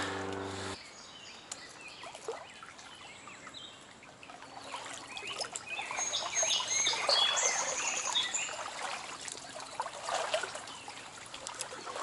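Songbirds chirping over the steady trickle of a stream. The chirps are loudest from about five to nine seconds in.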